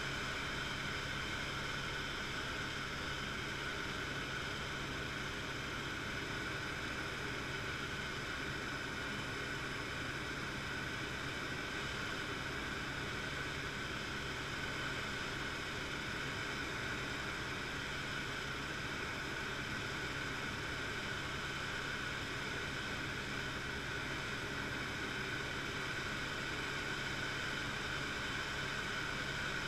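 Helicopter in cruising flight heard from inside the cabin: a steady drone of engine and rotor, a constant hiss with a few steady tones held throughout.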